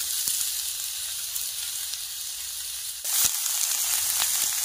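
Sliced onion, carrot and freshly added green capsicum sizzling in hot oil in an iron kadai, the sizzle getting louder about three seconds in, with a few faint clicks.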